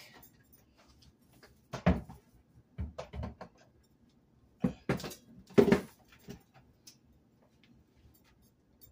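Kitchen knocks and clunks as things are put back on the counter and in the cabinets, about five separate bumps with quiet between them. The loudest comes about five and a half seconds in.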